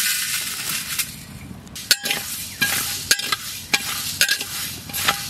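Whole cumin and coriander seeds with bay leaves poured with a rattling hiss into a metal wok to be roasted. From about two seconds in, a flat metal spatula scrapes and knocks against the wok, roughly twice a second, as the spices are stirred.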